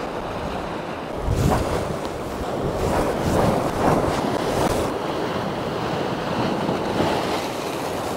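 Sea swell breaking and washing on the shore, with wind buffeting the microphone; the gusts are heaviest from about one to five seconds in.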